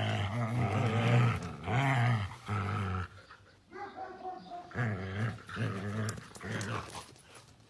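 A dog making a string of short, low vocal sounds, each about half a second long, louder for the first few seconds and softer after that.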